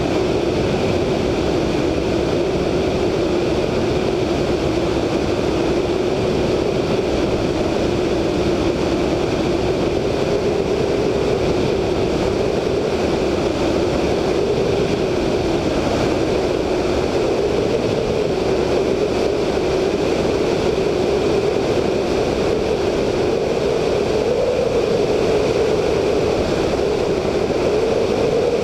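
Siemens-Halske Sh 14A seven-cylinder radial engine of a VL Viima II biplane droning steadily in flight, mixed with heavy wind rush over the wingtip microphone. The engine note wavers slightly and rises a little near the end.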